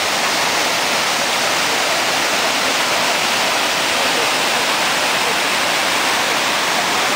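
Mountain-stream waterfall, white water pouring down steep rock slabs: a steady rush of water.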